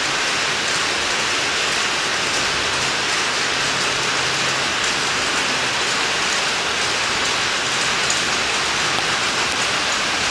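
Heavy rain pouring down steadily, falling on a corrugated metal roof and a flooded car park.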